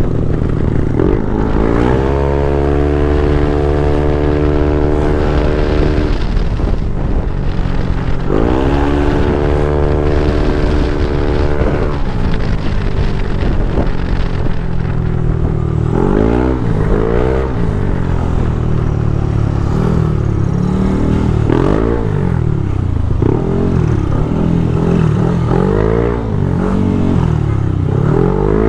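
Yamaha NMAX scooter's 195cc single-cylinder engine under a rider in traffic: the engine speed rises and then holds steady while the scooter gathers speed, twice. After that, the throttle is opened and closed again and again, so the engine note swings up and down.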